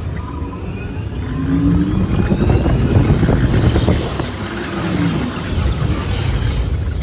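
Test Track ride vehicle moving through a dark show scene, mixed with the ride's onboard soundtrack effects: sweeping tones that rise and fall over a whooshing noise, loudest around the middle.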